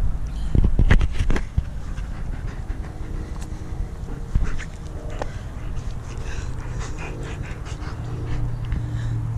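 German Shepherd panting close to the microphone while mouthing at a person's sleeve, with a few loud knocks about a second in and softer rustling through the rest.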